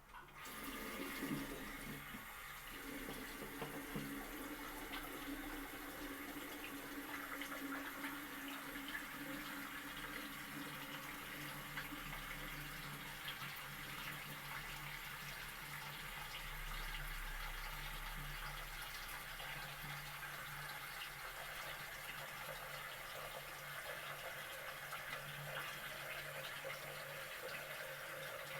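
Tap water running steadily into a sink while hands are washed under it.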